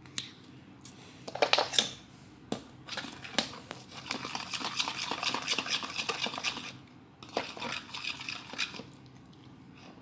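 A fork clinking and scraping against a bowl while stirring glue and glitter: a few scattered clicks, then a busy run of rapid scraping clicks through the middle seconds that tapers off.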